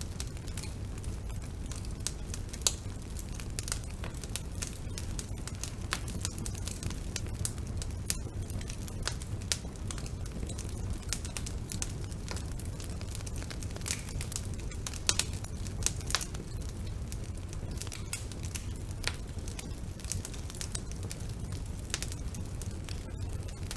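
Wood fire burning in a fireplace: a steady low rumble of flames with irregular crackles and snaps from the burning logs, a few sharper pops among them.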